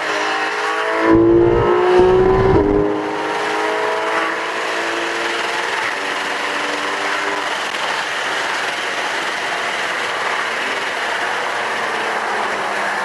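Porsche 991 GT3 RS's naturally aspirated 4.0-litre flat-six under hard acceleration, climbing in pitch with a loud surge in the first three seconds. It then settles to a steady engine note over road and wind noise.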